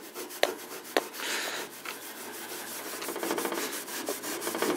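Steel wool pad, wet with pale boiled oil, rubbed quickly back and forth over a timber table top, lifting the old shellac coating. Two sharper ticks come about half a second and a second in.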